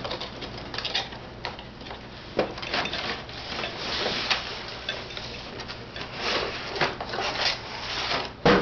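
Cardboard box scraping and rustling as a boxed tool set case is worked out of it, with scattered clicks and knocks and a sharp knock near the end.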